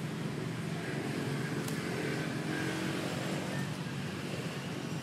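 Steady low background rumble with no distinct calls or impacts.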